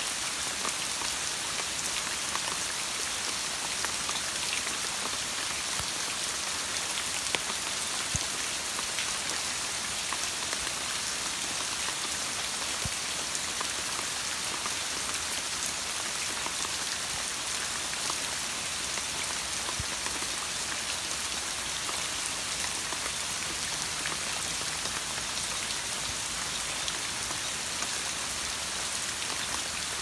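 Steady rain falling, with scattered single drops ticking now and then.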